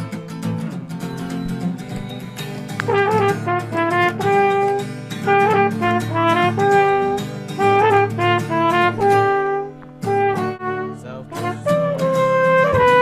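Live band music playing out the show: a rhythm accompaniment, joined about three seconds in by a melody of held notes that breaks off briefly near the ten-second mark.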